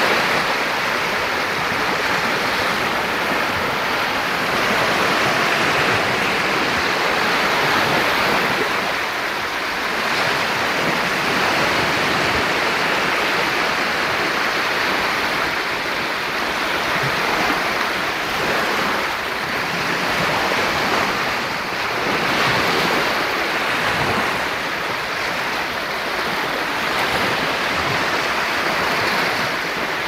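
Small sea waves breaking and washing up onto a sandy shore: a steady rush of surf that swells and eases gently.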